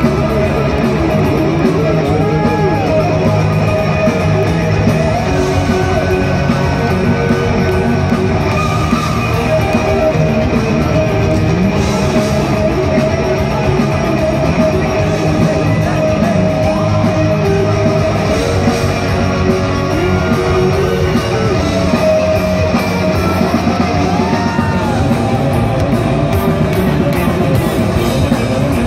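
Live heavy metal: electric guitars, bass and drums playing with a symphony orchestra, loud and unbroken, with lead lines that bend up and down in pitch now and then.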